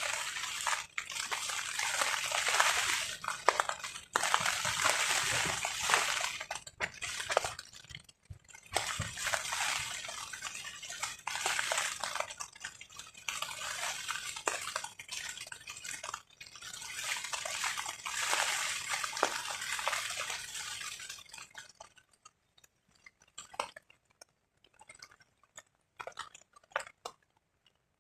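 Wind-driven rain on a tarp: a hiss that swells and fades in gusts with drops pattering on the sheet. It dies away about three-quarters of the way through, leaving scattered single drips.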